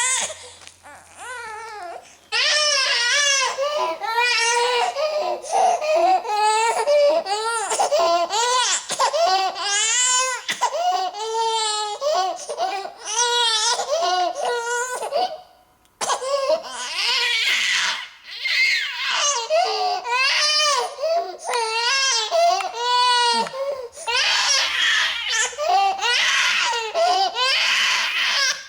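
Baby crying: loud, wavering wails in runs, with short gaps for breath about two seconds in and again about halfway through.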